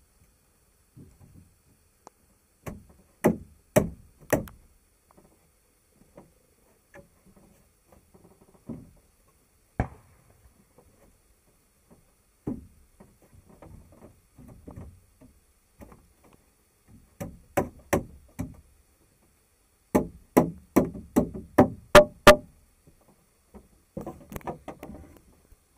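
Hard knocks of wood being struck: single blows and short groups, then a quick run of about seven strikes, roughly three a second, the loudest near the end of the run.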